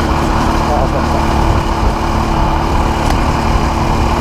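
Trail motorcycle engine running at a steady pace, with wind rumbling on the microphone. A single sharp click about three seconds in.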